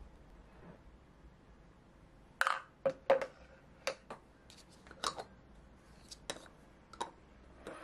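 Plastic lids being put onto small glass yogurt-maker jars: a string of sharp clicks and clinks, starting about two seconds in and ending shortly before the end.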